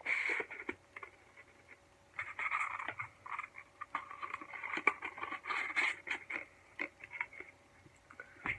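Packaging rustling and crinkling as items are handled out of a box, in irregular bursts with small clicks and taps.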